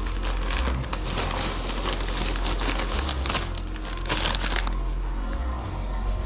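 Crumpled newspaper packing and packing peanuts crinkling and rustling as hands dig through a cardboard box, stopping about two-thirds of the way through. Background music with a steady bass line runs underneath.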